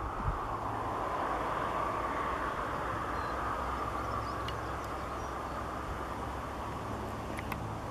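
Steady outdoor background rumble and hiss with a low hum beneath, and a couple of faint ticks near the end.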